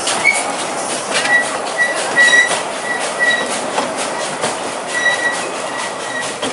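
2 ft narrow-gauge passenger coaches rolling slowly over curved track: wheels clicking over rail joints, with a thin, high wheel squeal from the flanges on the curve that comes and goes several times.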